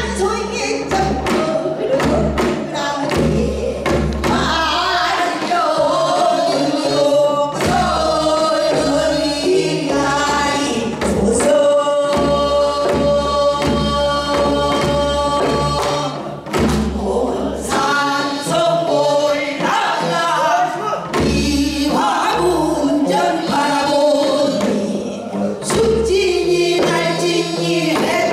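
Korean traditional folk singing by women in hanbok into microphones, several voices singing together with long, bending held notes over instrumental accompaniment.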